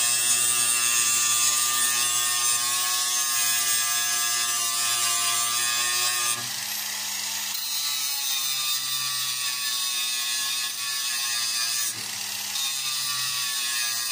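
Small electric angle grinder running at speed against the aluminium bow stem, taking the burrs off freshly drilled rivet holes before riveting. Its steady whine and grinding hiss drop somewhat about six seconds in, with a brief dip near the end.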